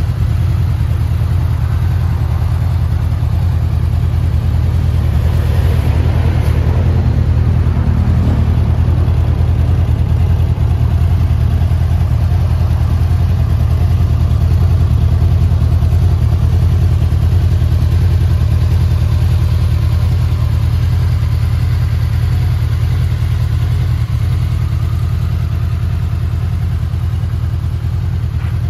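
Honda VFR800F's 782 cc V4 engine idling steadily.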